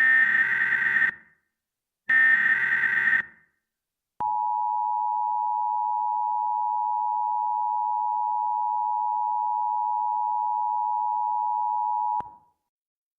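Emergency Alert System broadcast tones: two short screeching SAME header data bursts about a second apart, then the EAS attention signal, a steady two-tone beep near 900 Hz, starting about four seconds in and held for about eight seconds before cutting off.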